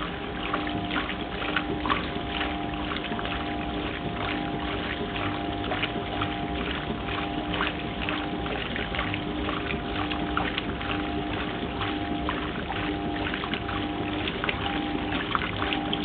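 1971 Simpson Fluid Drive top-loading washing machine agitating a load: water churning and splashing around the agitator over the machine's steady hum.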